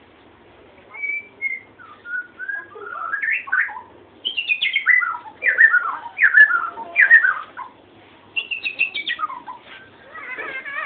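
Prinia (prenjak) singing from a cage: a series of loud whistled notes, most sliding downward, then a burst of quicker, wavering notes near the end.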